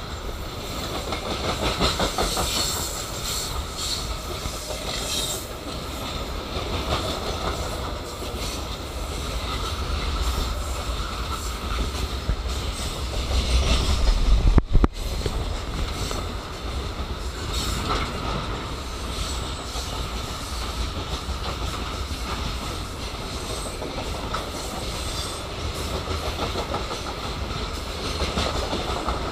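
Freight train wagons rolling past close by: steel wheels clattering over the rail joints over a continuous rumble, somewhat louder around the middle.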